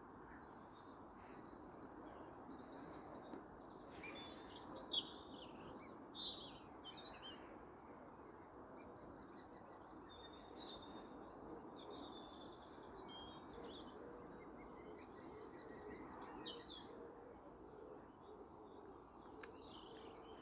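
Several songbirds singing in a dawn chorus, with brighter bursts of song about four to six seconds in and again around sixteen seconds. Under them is the steady hum of distant traffic, carrying further than usual, which the speaker thinks may be due to a temperature inversion.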